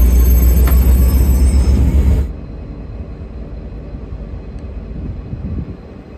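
V/Line N class diesel locomotive and its train rumbling loudly through the station, with a thin high-pitched squeal over the top. About two seconds in the sound drops suddenly to a quieter, steady rumble.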